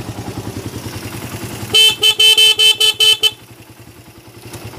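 Motorcycle engine running with a steady pulse, then the bike's electric horn sounds in a quick series of about six short honks. The horn is powered with the battery disconnected and an electrolytic capacitor wired in, which makes it sound louder.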